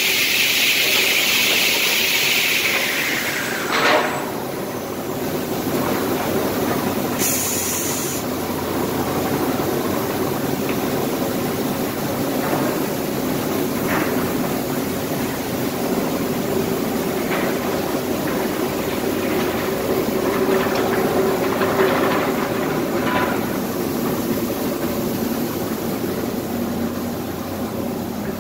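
Retro C component saw line running: circular saws on electric motors and a chain-driven live deck. A loud hiss over the first few seconds ends in a sharp clunk about four seconds in, then steady machine noise with occasional knocks.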